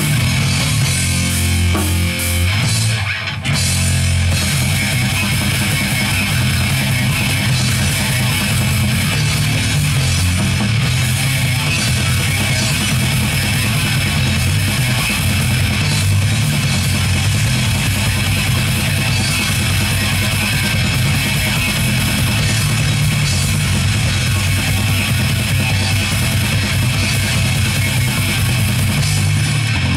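Heavy metal band playing live: electric guitars, bass guitar and drum kit in an instrumental passage without vocals, with a short break about three seconds in.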